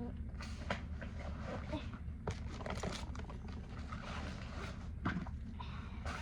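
Small fishing gear being handled and put away: scattered clicks and rustles over a steady low hum.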